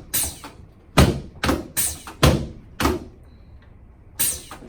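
A series of sharp thuds during a chiropractic adjustment, about seven of them at uneven intervals, with a gap of about a second after the fifth.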